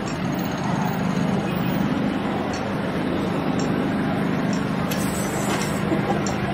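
Steady city traffic noise with a constant low hum.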